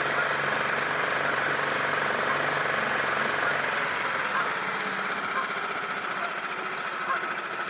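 Small 6-horsepower outboard motor running steadily on the boat, its pitch dropping a little about halfway through as it slows.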